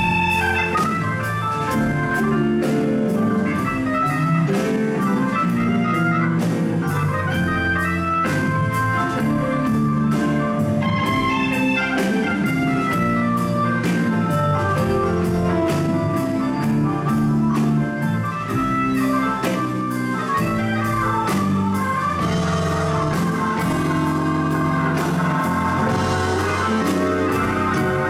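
Live band music led by a Hammond organ, over electric guitar and a steady drum beat.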